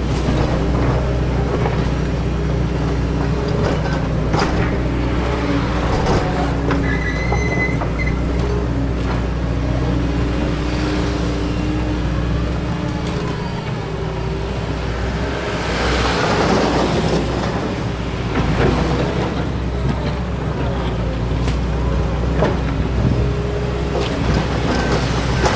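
Doosan DX225LCA excavator's diesel engine running steadily under load, with scattered clanks from the working machine and a rush of noise about two-thirds of the way through.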